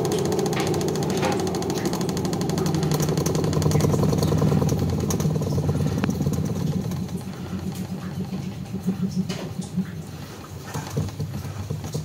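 Spin-dryer motor of an Aqua twin-tub washing machine running with a steady hum, turning the spin basket, newly fitted in place of a badly damaged original. About halfway through the hum grows quieter and more uneven.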